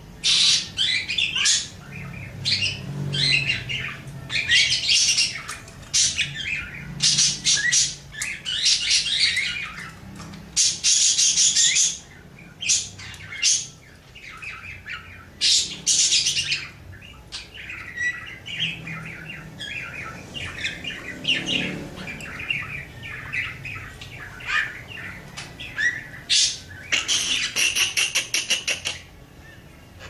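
Budgerigar warbling at length: loud bursts of rapid chirps and chatter with short pauses between them, and a fast buzzing rattle near the end.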